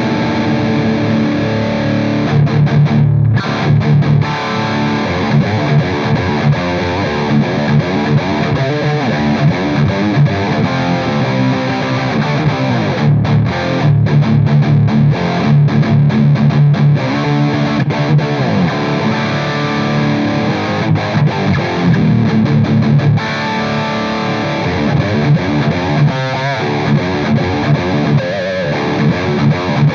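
Electric guitar played through a Soldano SLO high-gain distortion pedal set for a metal tone, with the mids scooped, the Deep switch on and the presence raised. It is heavy distorted riffing with short choppy stops.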